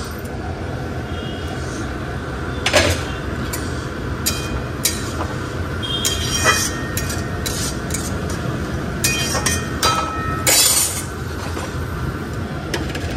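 A metal spatula clinks and scrapes against a metal wok as greens and potatoes are stirred, giving many short ringing clinks over a steady background hiss. About ten seconds in there is a louder burst of scraping.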